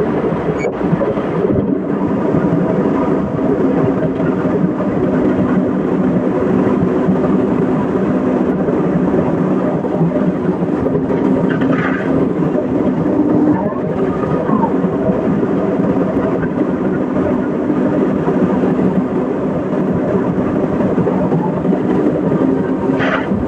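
Excavator's diesel engine running steadily, a dense, loud machine noise with a few brief higher squeals about halfway through and near the end.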